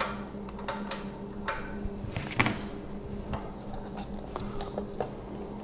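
Small clicks and taps of a 10 mm wrench working the oil drain bolt loose on a small engine, with one louder knock about two and a half seconds in, over a steady low hum.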